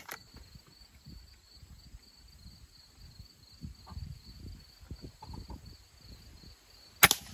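Crickets chirping steadily, then near the end a single sharp crack of the silenced pellet gun firing.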